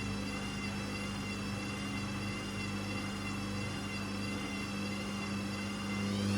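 Hoover Custom Vision washing machine's motor running with a steady low hum and a slightly wavering high whine; near the end the whine starts to rise in pitch as the drum speeds up.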